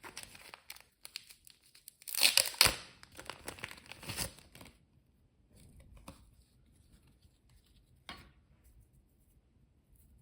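Crinkling and rustling of plastic packaging as pink chenille fly-tying material is taken out, in loud bursts about two seconds in and around four seconds, with a short crackle near eight seconds.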